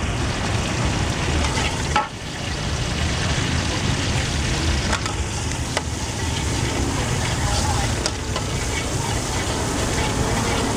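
Hot oil sizzling in a wok while a steel spatula stirs and scrapes the pan, with a few sharp scrapes or taps of the spatula against the metal. A low steady rumble runs underneath.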